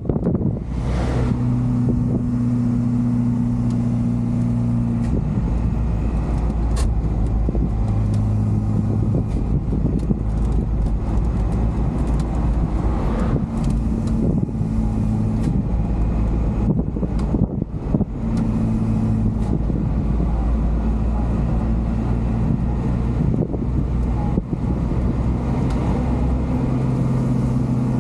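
JAC truck's diesel engine running while driving, heard from inside the cab, with a steady low hum whose pitch steps up and down several times as engine speed changes.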